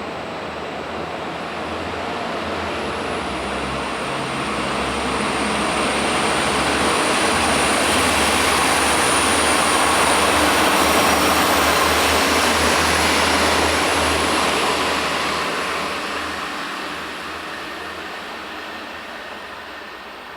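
A train passing through the station: its rolling noise builds steadily, peaks in the middle, then fades away toward the end.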